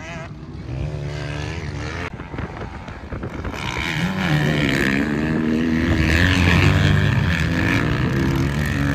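Motocross dirt bike engine revving on the track, its pitch rising and falling with the throttle. It grows louder from about the middle as the bike comes closer.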